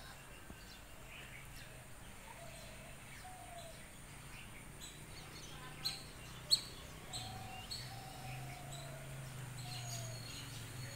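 Birds chirping in short scattered calls over a steady low hum, with two sharp clicks a little past halfway.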